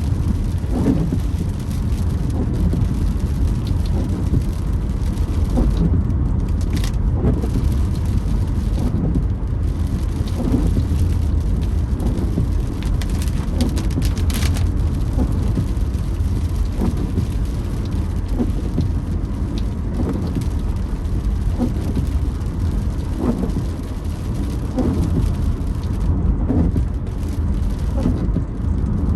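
Inside a moving car in the rain: steady road and engine rumble with rain on the body and glass, and windshield wipers creaking on each sweep, about once a second.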